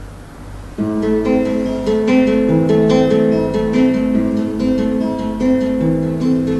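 Acoustic guitar playing a song's introduction, strummed chords starting about a second in, after a faint low hum.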